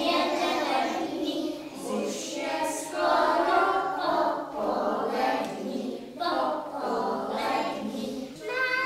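A group of preschool children singing together in chorus, unaccompanied.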